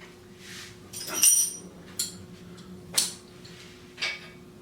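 A metal tool clinking against the hand truck's wheel hub and axle as a stuck wheel is worked at: four sharp clinks about a second apart, the second the loudest with a brief metallic ring.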